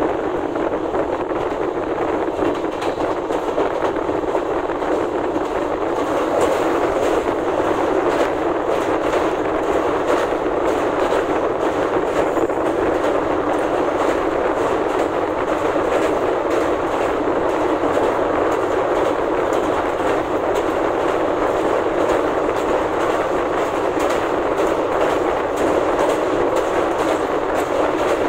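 Express passenger train running at speed, heard from aboard a coach: a steady rumble of wheels on rail with a clickety-clack of rapid clicks, as it crosses a steel truss river bridge.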